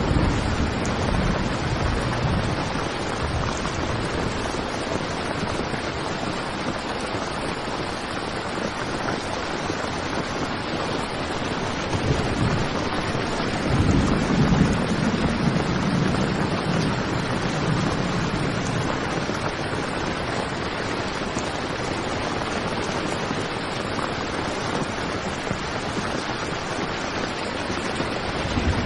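Heavy rain falling steadily on a tent, an even hiss. A low rumble swells about halfway through and fades over a few seconds.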